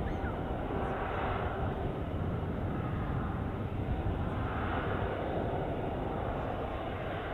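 Boeing 737-600 jet airliner on final approach, its CFM56 turbofans heard as a steady rumble and hiss that swells and fades slightly.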